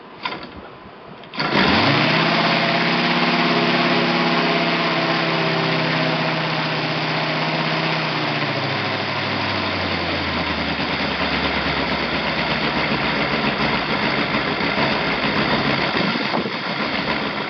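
Saito FA-325 R5 five-cylinder four-stroke glow radial model engine cold-started by hand: the propeller is flipped and the engine catches about a second and a half in, then runs steadily. About halfway through its note drops lower.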